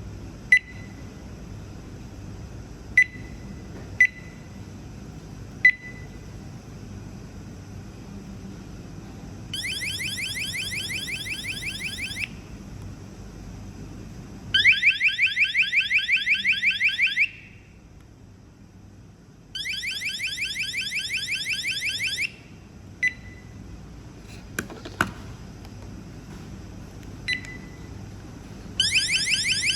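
Wireless magnetic door alarm giving single short beeps as its buttons are pressed. Between them it sounds its rapidly pulsing electronic alarm siren in bursts of about three seconds, three times and again near the end, each burst at a different loudness as the alarm's high, medium and low volume settings are changed.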